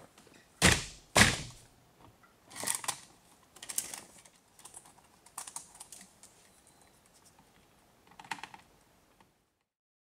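A 2001 Citroën C5 steering wheel is struck by hand to knock it loose from the steering column, with two sharp knocks about a second in. Several weaker knocks and plastic clicks follow as the wheel is worked free.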